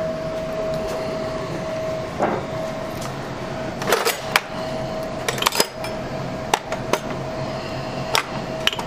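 Metal hand tools clinking and rattling as the drawers of a steel rolling tool chest are pulled open and rummaged through: a string of sharp clicks and knocks, thickest from about four seconds in, over a steady background hum with a constant tone.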